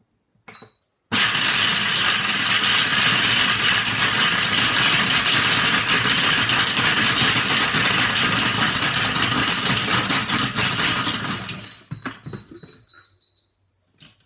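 Monsieur Cuisine food processor's blade chopping Toffifee at speed 10: a loud, steady run of about ten seconds, with the hard candies clattering in the steel bowl. It starts just after a short high beep and dies away near the end, followed by a run of short high beeps from the machine.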